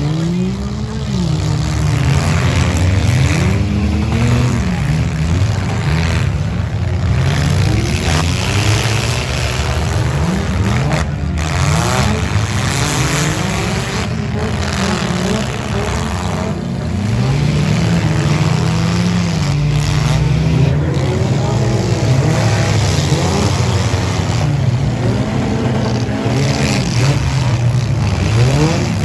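Several demolition derby cars' engines revving up and down at once, a loud continuous din of overlapping engine notes rising and falling.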